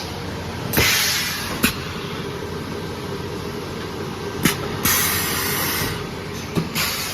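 Automatic high-frequency insole welding machine running with a steady electrical hum. Two bursts of air hiss come about a second in and about five seconds in, and sharp clunks from the press mechanism come three times as it cycles.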